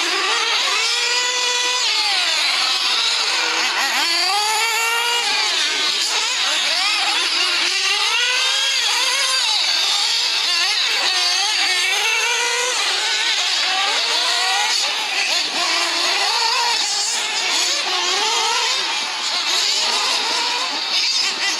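Several 1/8-scale nitro RC buggies and truggies running around a dirt track. Their high-pitched engines rev up and drop back over and over, overlapping one another.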